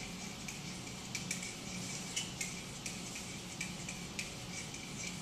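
Pen tapping and scratching on an interactive whiteboard while handwriting, heard as a string of small irregular clicks over a steady low hum.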